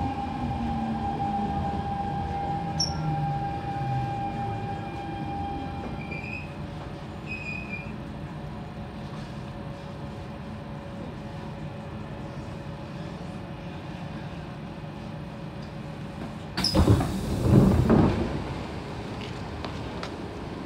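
Siemens C651 metro train braking into a station: the whine of its traction motors falls in pitch and fades over the first several seconds as the train comes to a stop, leaving a steady hum. About 16 seconds in, a sudden loud burst of noise lasting about two seconds comes as the doors open.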